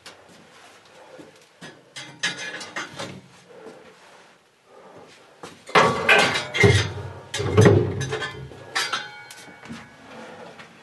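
Irregular clattering and knocking of tools and hot stoneware pieces at the open door of a red-hot kiln during a reduction firing. Sparse at first, then a loud run of clanks a little past halfway.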